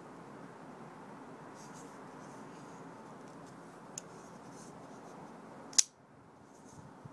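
Custom titanium-and-carbon-fibre IKBS flipper folding knife being handled: faint light clicks and scrapes, a small click about four seconds in, then one sharp loud snap near the end as the blade flips open on its ball-bearing pivot and locks up.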